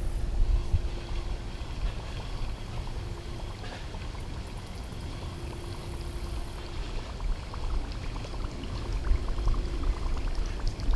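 Low wind rumble on the microphone with faint watery gurgling and sputtering, fitting a Whopper Plopper topwater lure being reeled across the pond surface.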